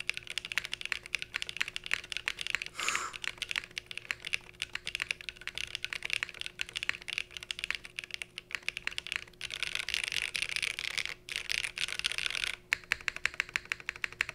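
Typing on a Cycle 8 mechanical keyboard with HMX Ice Cendol switches and GMK keycaps: a fast, dense run of key clacks with two short pauses, ending in a quick, evenly spaced series of presses. This is a sound test after the spacebar switch was swapped to cure a rattle, and the board now sounds clean.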